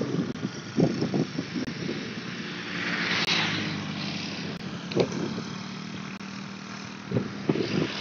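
Motorcycle engine running with a steady hum, and a hiss that swells and fades about three seconds in as a vehicle goes by. A few soft knocks.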